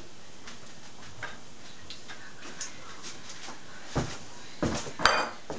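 Fritters sizzling steadily in hot oil in a frying pan, with light scattered clicks. Near the end come a few knocks and a short ringing clink of crockery being set down on the table.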